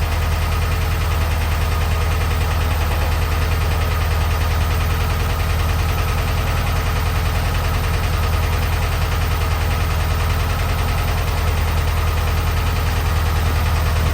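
A '912' flat-four engine running steadily at idle, holding one even speed throughout, while its owner questions whether the sound is bad or normal.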